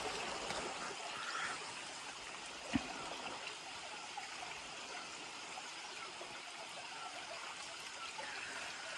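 Shallow mountain stream trickling steadily over rocks, with a single brief thump about three seconds in.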